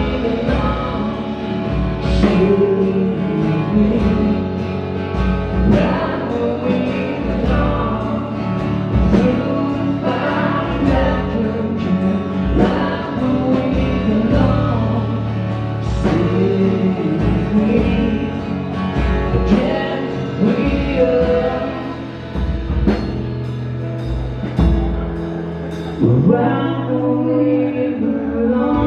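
Live band performing a song with sung vocals, guitars and drums.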